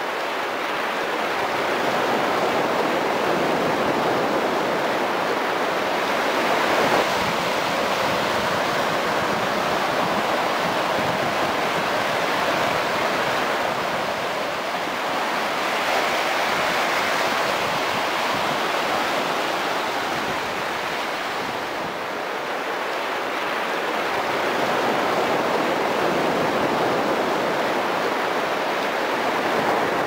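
Small waves breaking and washing up over a sandy shore: a continuous rush of surf that swells and eases every several seconds.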